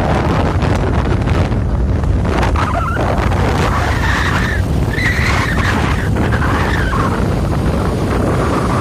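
Heavy wind buffeting on the microphone of a camera carried on a moving motorcycle, with the engine running underneath. A fainter wavering whine comes and goes midway.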